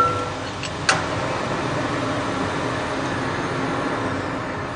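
Two sharp metal clinks about a second apart, the first ringing briefly, as a tool works on the cutting machine's bearing bolts, over a steady mechanical hum.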